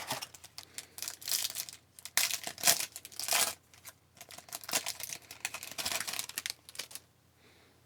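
A hockey card pack wrapper crinkling and tearing open in irregular bursts of rustling, stopping about a second before the end.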